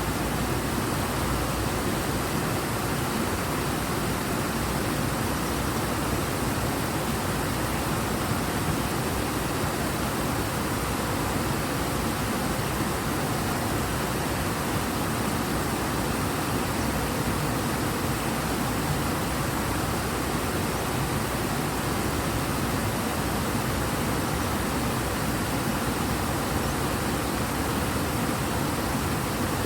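The Ebro river in strong flow, its water rushing in a steady, even roar.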